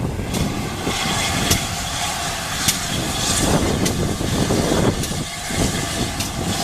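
A train running past with a steady low rumble and a few sharp, irregular clicks.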